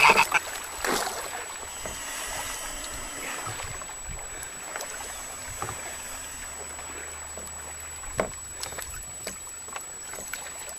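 The tail of a goose's honking cuts off right at the start. Then comes a fainter steady wash of water and wind around a kayak, with a few light knocks, the clearest about a second in and about eight seconds in.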